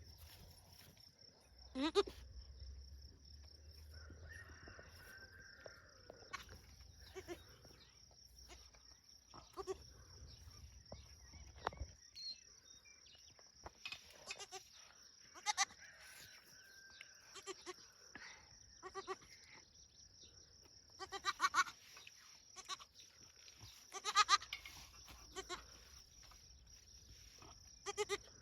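Boer goat kid bleating again and again in short calls, over a steady high-pitched whine.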